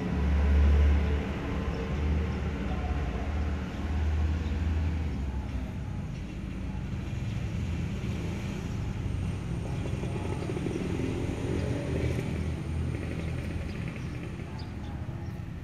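Low, steady rumble of a motor vehicle engine, loudest in the first few seconds and then evening out.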